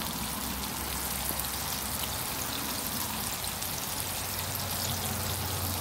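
Battered chicken pieces deep-frying in hot canola oil in a cast iron skillet: a steady, fine crackling sizzle. The sizzle shows the chicken is still cooking; the frying noise dies away once it is done.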